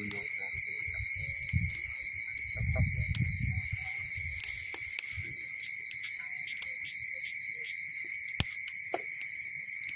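Night insects, crickets among them, calling steadily: a continuous high trill with a faster, pulsing higher note above it. A few sharp clicks break in, the loudest about eight and a half seconds in, and there is some low murmuring around three seconds in.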